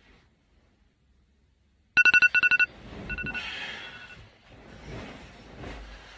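Electronic ringer trilling: about two seconds in, a loud rapid run of beeps at a fixed pitch, about ten a second for under a second, then one short beep and softer ringing tones.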